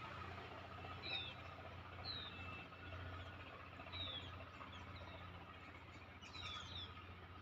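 A pet parrot giving a few short, high chirps that fall in pitch, a second or two apart, over a low steady hum.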